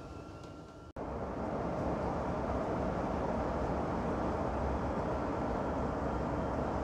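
Steady engine and road noise inside a moving bus, coming in abruptly about a second in after a brief dropout. Before that, a quieter vehicle ride noise with a thin steady whine.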